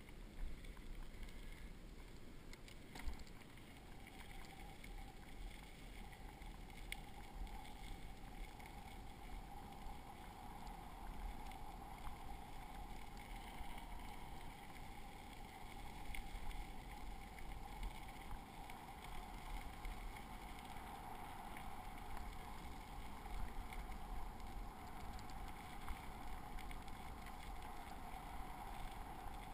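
Bicycle rolling along a gravel trail: a steady low rumble of tyres and ride vibration, with scattered small clicks and a faint steady hum that comes in about three seconds in.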